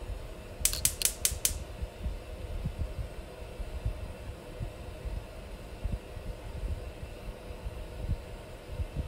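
Gas range burner burning steadily under a wok: a low, uneven rumble with a faint steady hum. About a second in, a quick run of five sharp clicks.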